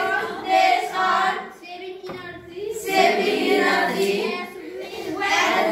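Children's voices singing together in a classroom.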